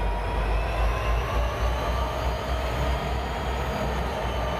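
A pair of EMD SD50-2 diesel-electric locomotives, with 16-cylinder EMD 645 engines, moving slowly past: a steady deep engine rumble with a high whine over it that bends slightly in pitch.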